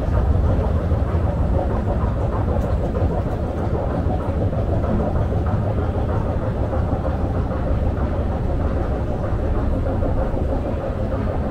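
Metro train running, a steady loud rumble with no break.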